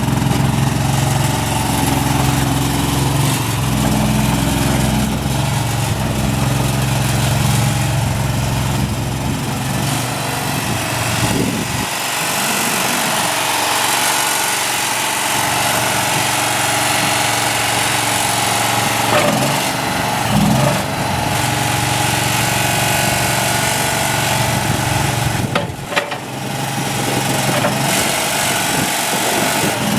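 Mini tracked skid steer's small engine running under operation. Its low hum is steady at first, then changes and grows lighter about twelve seconds in. A few sharp knocks come later.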